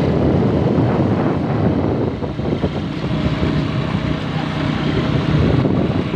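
Motor vehicle driving, its engine running steadily under heavy wind noise on the microphone.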